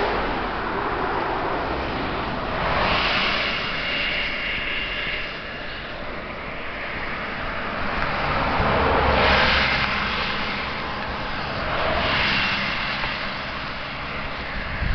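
Road traffic: cars passing one after another on the adjacent road, each a swell of tyre and engine noise that rises and fades away, three times.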